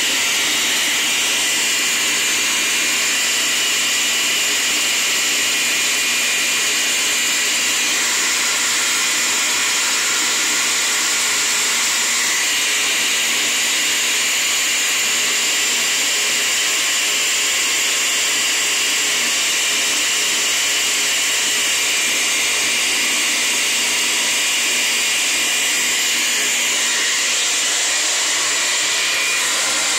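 Electric countertop blender motor running steadily: a loud, continuous whir that switches on abruptly and does not change.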